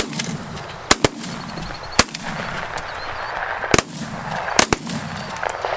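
Shotgun blasts from a pigeon shoot: about seven sharp shots in quick, uneven succession, some in close pairs.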